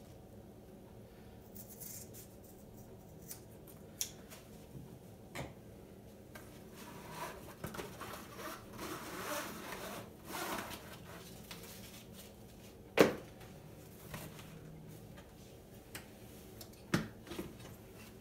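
Scissors snipping through a fabric strap handle on a nylon bicycle bag, followed by rustling of the bag's fabric and a few sharp clicks as the bag is handled and lifted off the bike, the loudest click about two-thirds of the way through.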